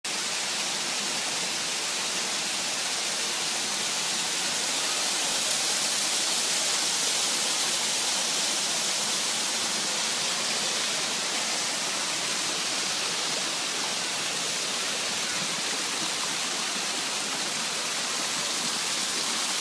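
Steady, even rush of falling water from a waterfall on artificial rockwork, with no breaks or changes.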